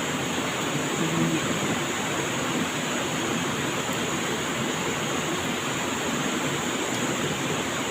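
Steady rushing of flowing river water, with a steady high-pitched hiss above it.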